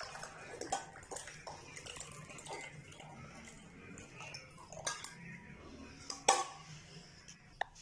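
Kitchen dishes and utensils clinking and knocking as tea is served: several light, sharp clinks over a faint background, the loudest near the end.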